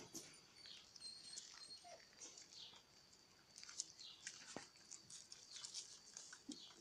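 Faint, quiet sounds of a puppy licking and nosing at a hand: small wet clicks and snuffles, with a couple of faint short squeaks, over a thin steady high tone.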